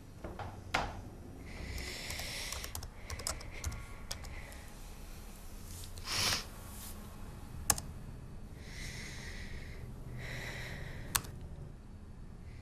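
Scattered keystrokes on a computer keyboard in a small room. Between them come several hissing noises, each about a second long.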